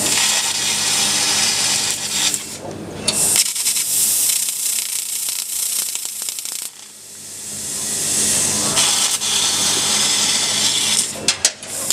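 Fiber laser cutting 10 mm carbon steel plate: a loud hissing rush from the cutting head's jet. It cuts off suddenly about two-thirds of the way through, then builds back up over the next two seconds, and a few sharp crackles come near the end.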